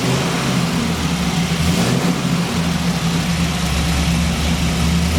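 Car engine idling steadily with no odd noise. It is running normally; the strange noise it has been making comes only after it is switched off.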